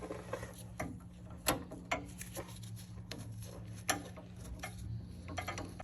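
Irregular sharp clicks and knocks of hand tools and fittings as brake lines and connectors are undone from an ABS control module, over a steady low hum that cuts off at the very end.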